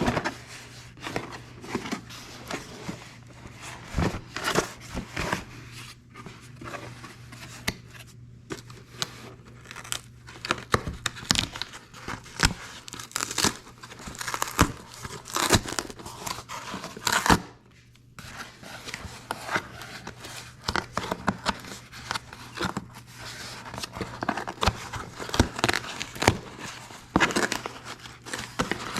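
Camera box packaging being opened by hand: irregular tearing, crinkling and rustling of wrapping, with a steady low hum underneath.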